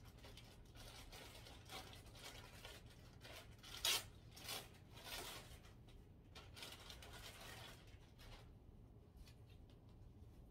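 Faint rustling and crinkling of packaging and fabric as bras are handled at a desk, with a sharper crinkle about four seconds in.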